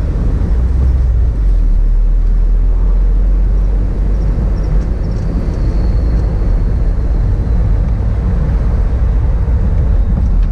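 Steady low engine and road rumble inside the cab of a moving VW Saveiro pickup, with a faint high whine partway through.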